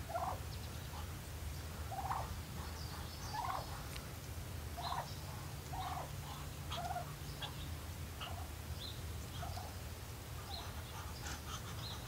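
Bronze turkey hen calling, a short call repeated about every second or so.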